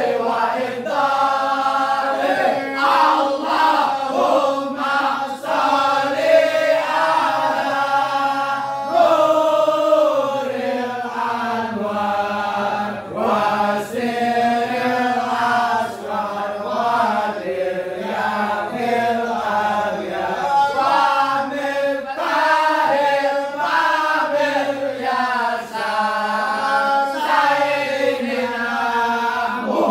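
A congregation of voices chanting a sholawat in unison, an Arabic devotional song in praise of the Prophet, in one continuous slowly wavering melody.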